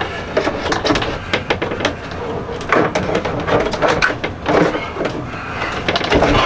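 An Isotherm refrigeration unit being worked into a tight cabinet opening: scraping and rubbing with many irregular knocks and clicks.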